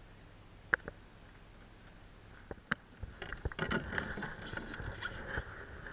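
A loaded canoe and its gear being handled: a couple of sharp knocks in the first half, then from about halfway a busy stretch of clatter and rustling.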